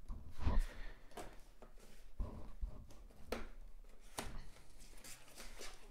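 A cardboard box being opened and handled: irregular rustles and short knocks, the sharpest about half a second in and others around two, three and four seconds in.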